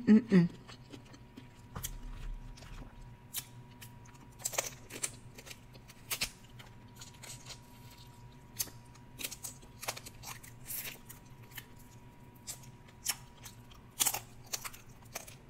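Dungeness crab being eaten by hand close to the microphone: scattered sharp crackles and clicks of shell, with smacking, sucking and chewing mouth sounds.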